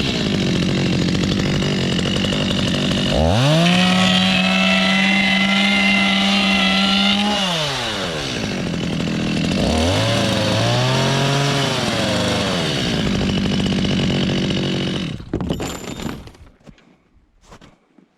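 Chainsaw engine running, revved up hard for about four seconds, dropping back, revved again more briefly, then shut off about fifteen seconds in.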